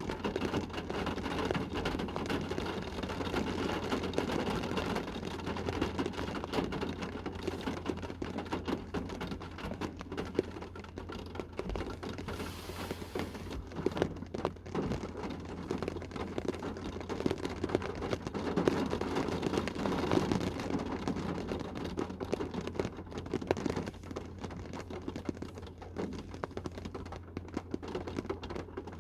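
A rain shower pattering on a car's roof and windows, heard from inside the car: a dense, uneven tapping of drops that swells heavier a few times, over a steady low hum.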